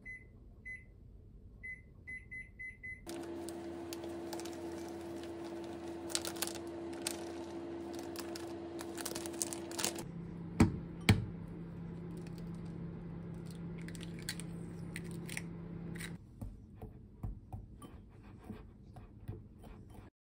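Microwave oven keypad beeping several times as it is set to 600 W for 5 minutes, then the oven starting and running with a steady hum. About ten seconds in, a lower steady hum takes over with two sharp knocks. Near the end a wire whisk taps and scrapes lightly in a glass bowl of flour.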